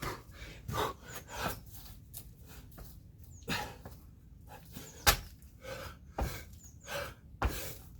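A man breathing hard from heavy exertion, a string of short, heavy breaths every half second to a second. There is one sharp thud about five seconds in.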